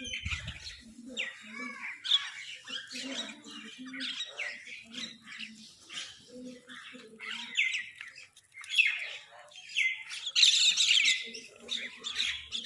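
Crows squabbling over food: many short, harsh calls overlapping one another, with higher chirps mixed in, loudest and densest a couple of seconds before the end.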